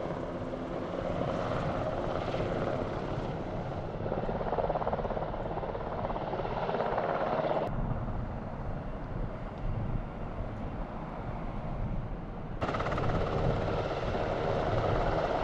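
UH-60 Black Hawk helicopter hovering and flying low, a steady rotor beat and engine rush. The sound thins out abruptly about eight seconds in and comes back just as abruptly about five seconds later.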